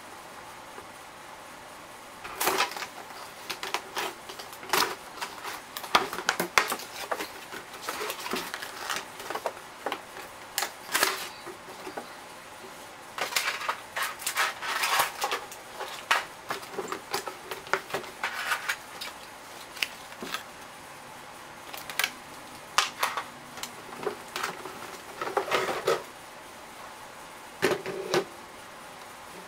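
A cardboard toy box being cut open and unpacked by hand: irregular rustles, scrapes and knocks of cardboard and packaging, with short quiet gaps between.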